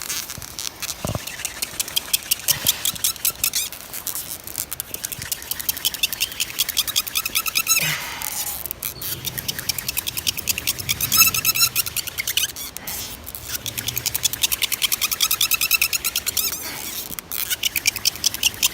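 Hand-drill spindle twirled fast in a wooden hearth board, giving a squeaky plastic noise in quick repeated pulses, with a short break about eight seconds in.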